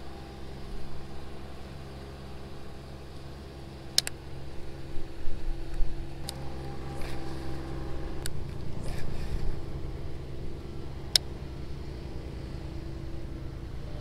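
Lawn mower engine running steadily, its note changing about eight seconds in. A few sharp clicks sound over it.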